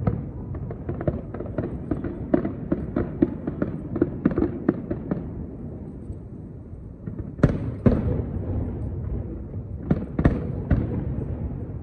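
Aerial firework shells bursting: a rapid string of crackling pops for the first five seconds or so, then loud bangs with a rumbling tail about seven and a half seconds in and again around ten seconds.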